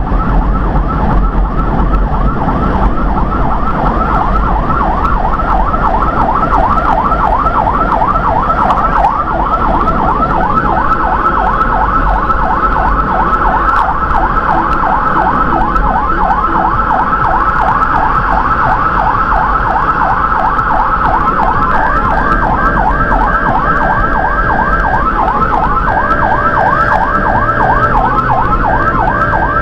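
Electronic emergency siren on the responding vehicle, heard from inside the cab, sounding a fast yelp that sweeps up and down several times a second over road and engine noise. Steady tones join it over the last several seconds.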